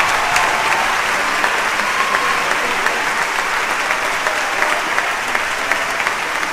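Theatre audience applauding steadily, dense even clapping.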